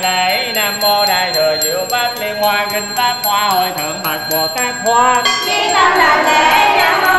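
Vietnamese Buddhist chanting sung as a slow melody, the voice gliding between notes, with a bell ringing.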